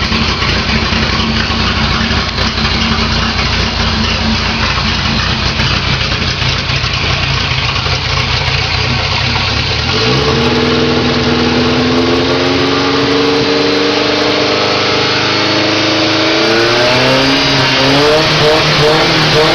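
Naturally aspirated Volkswagen Gol engine running loud through a 4-into-1 header exhaust. A low rumble for the first half, then the revs climb about halfway through, hold, and rise again near the end in a few quick blips.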